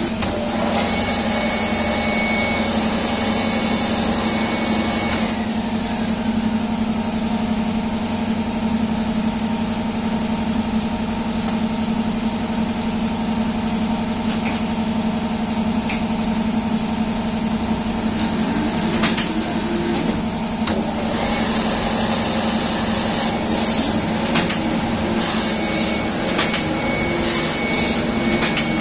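Sakurai SC-72A cylinder screen printing press running steadily: a constant motor hum, with its main motor on a Toshiba variable-frequency drive. Twice a hiss rises over it for a few seconds, and sharp mechanical clicks come now and then, more often near the end.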